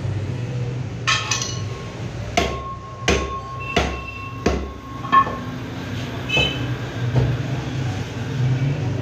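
Butcher's cleaver chopping meat on a wooden tree-trunk block: about eight sharp chops, roughly one every 0.7 seconds, from about a second in. A steady high tone sounds under the first few chops.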